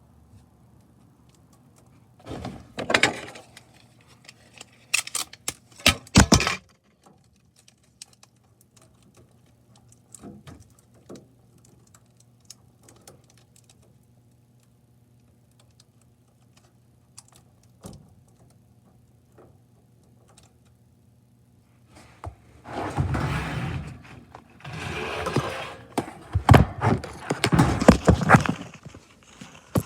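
Clanks, thunks and rattles of metal being handled: two short bursts within the first seven seconds and a long stretch of loud clattering near the end, over a steady low hum.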